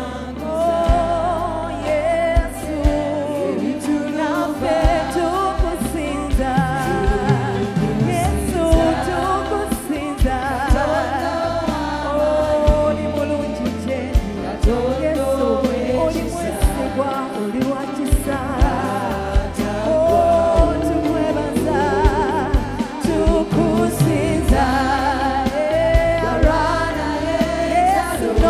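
Live Luganda gospel worship song: a woman sings lead over a choir and band, with a steady drum beat.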